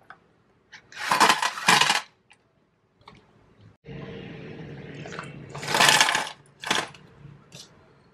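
Aluminium Nespresso coffee capsules tipped from their sleeve into a metal tin, clattering in a burst about a second in and again about six seconds in. A steady mechanical hum starts about four seconds in.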